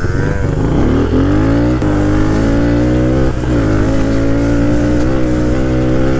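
Small dirt bike's engine revving up while riding, its pitch climbing and dropping at gear shifts about two seconds in and again past three seconds, then holding a steady pull.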